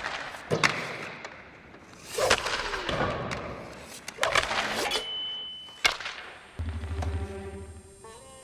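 Ice hockey shooting practice in an empty arena: sharp cracks of a stick striking the puck and the puck hitting the boards or net, with short hissing scrapes of skates on ice. About two-thirds of the way through, music comes in with a low drone and rising notes.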